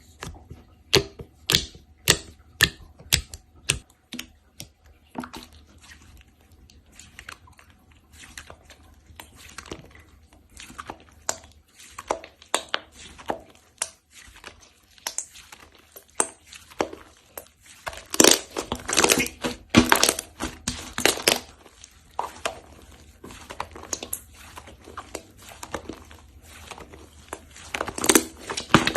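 Slime being squished and poked by hand, giving a stream of sharp sticky clicks and pops that grow densest about two-thirds of the way through.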